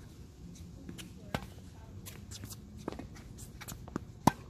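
Tennis rally on a hard court: scattered ball bounces and racket strikes, with shuffling footsteps between them. The loudest, a sharp crack of a close racket hitting the ball, comes near the end.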